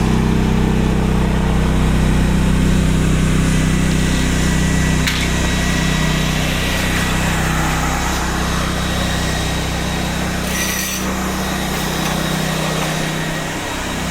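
Concrete grinder running steadily as it grinds old epoxy coating off a concrete driveway, a low steady hum under a coarse grinding noise.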